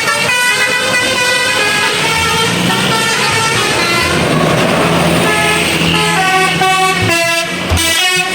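Indonesian bus 'telolet' horn, a multi-tone musical horn, playing a tune of short notes that step quickly from pitch to pitch, with a low steady drone underneath for much of the time.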